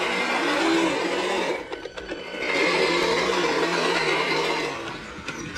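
Brushless electric motor of an RC crawler truck whining under load as its tyres churn and splash through thick mud. The motor eases off briefly about two seconds in, then picks up again.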